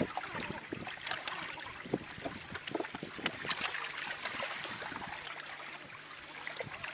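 Small waves lapping and slapping irregularly at the water's edge, with wind blowing.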